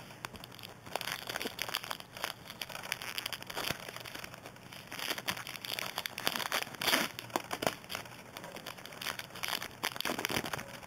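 Crinkling and rustling of trading-card foil pack wrappers being handled, with irregular crackles as the cards are shuffled through.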